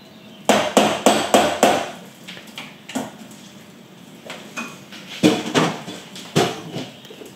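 Sharp knocks of hard kitchen utensils against kitchenware. There are four quick knocks in the first two seconds, a single knock around three seconds, then two pairs of knocks near the end.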